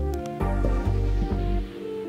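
Background music: instrumental, with deep sustained bass notes and held melody tones.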